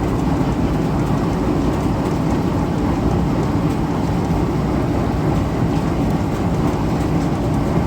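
Antique Champion upright leather sewing machine running steadily, a continuous mechanical rumble and rapid rattle of the stitching mechanism.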